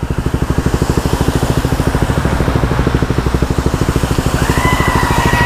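KTM Duke 125's single-cylinder four-stroke engine idling through a Scorpion exhaust, an even rapid pulsing, while a car drives through flood water with a steady hiss of spray. About four and a half seconds in, a steady high tone joins.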